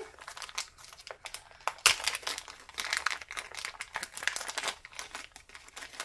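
Small plastic packet crinkling and crackling as it is handled and pulled open by hand, with a sharper crackle about two seconds in.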